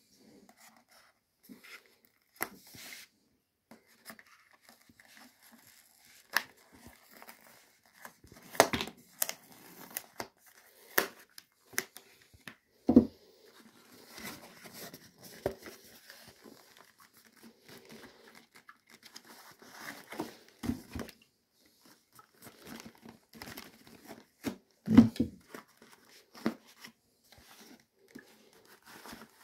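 Paper gift sleeve being handled and opened: rustling and crinkling paper with some tearing. A couple of dull knocks, about halfway through and again near the end, as the perfume box is bumped or set down.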